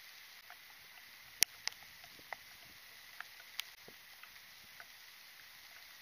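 Steady hiss of rain with scattered sharp drips and drop impacts, the loudest about one and a half seconds in.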